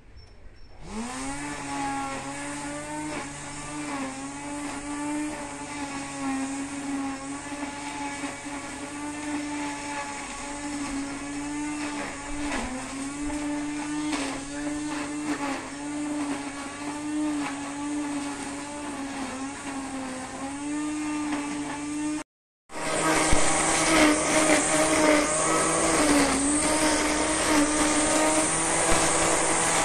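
Electric string trimmer whining up to speed about a second in, then running at a steady pitch with small dips as the line cuts into grass and weeds. It cuts out for a moment near the end and comes back louder and closer.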